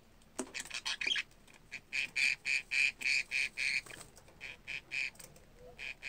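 Budgerigar chirping in a rapid series of short, harsh calls, about three or four a second, with a quick tumble of clicks and chirps near the start and a brief pause partway through.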